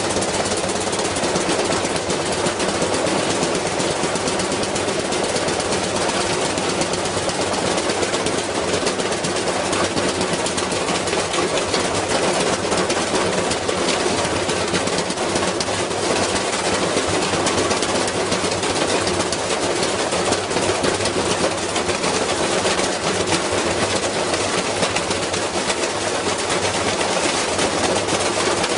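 Washing machine running with a heavy object inside, the badly unbalanced load making a steady, dense rattling and rapid banging as the machine is shaken to destruction.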